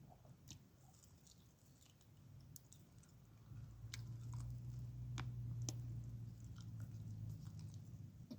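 A person chewing food close to the microphone, with scattered small crisp clicks and smacks. A low hum swells about three and a half seconds in and fades shortly before the end.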